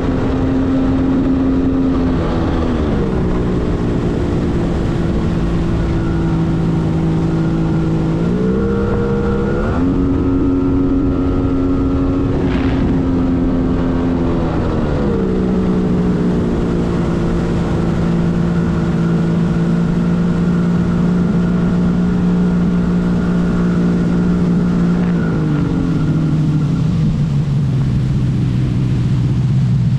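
Two-stroke engine of a 1997 Arctic Cat TigerShark Monte Carlo 1000 personal watercraft running under way at steady throttle, with water and wind noise underneath. The engine pitch drops about three seconds in, rises again around nine seconds, drops at about fifteen seconds, and drops once more to a lower pitch near the end.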